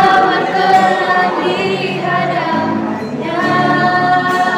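Teenage girls' youth choir singing a praise song together, holding long notes, with a brief break between phrases about halfway through.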